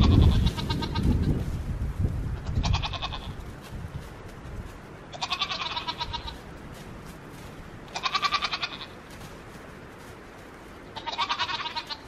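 A goat bleating over and over, one wavering call about every three seconds, four or five calls in all. A low rumble underlies the first few seconds.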